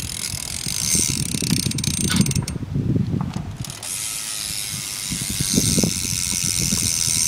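BMX bike's rear hub clicking rapidly as the wheel spins freely: the pawls ratcheting inside the hub.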